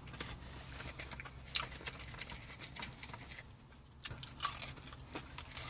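Mouth sounds of someone eating a crispy fried chicken tender: soft chewing, then from about four seconds in sharp crunches and crackles as the breaded coating is bitten.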